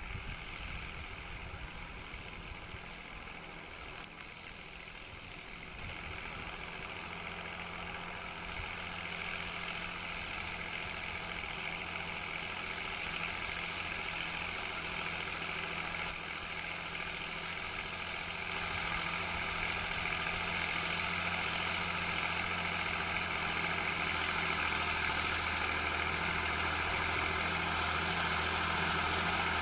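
Fiatagri 100-90 DT tractor's six-cylinder diesel engine running steadily under load, pulling a disc harrow. It grows gradually louder, with a strong low engine hum and a rising hiss above it.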